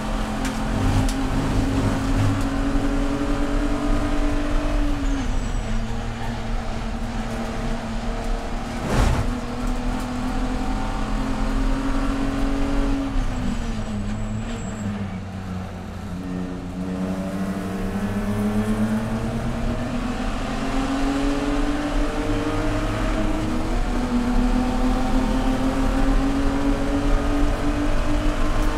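A BMW E46 race car's straight-six engine, heard from inside the cabin, running hard in fourth gear. The revs ease off about halfway through, then climb steadily as the car accelerates. A single sharp knock comes about nine seconds in.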